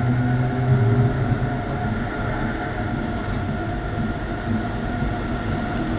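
DB Class 101 electric locomotive running, heard from the coach behind it: its traction converter hums in several steady tones over the train's rolling noise. The strong lowest tone drops out about a second and a half in.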